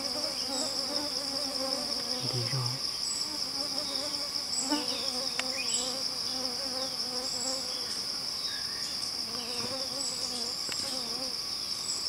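Steady high-pitched drone of insects, with a few faint short chirps scattered through it.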